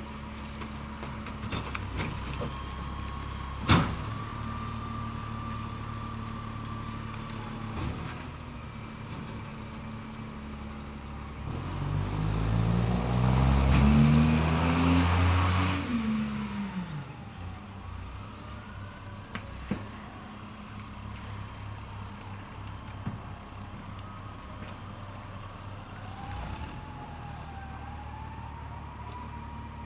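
Garbage truck engine idling with a steady low hum, a sharp bang about four seconds in, then revving up for about four seconds with a rising pitch and a rush of noise before dropping back to idle. A brief high squeal follows, and a few light knocks come later.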